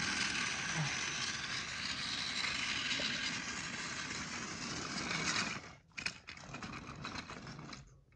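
Plarail Emily toy locomotive running on plastic track: a steady whirr of its small battery motor and gearbox with the rattle of wheels on the track. It cuts off about five and a half seconds in, followed by a few light plastic clicks as the toy is handled.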